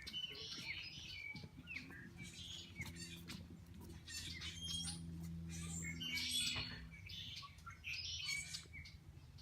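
Several wild birds chirping and calling, short sharp notes overlapping one another, with a low steady hum underneath.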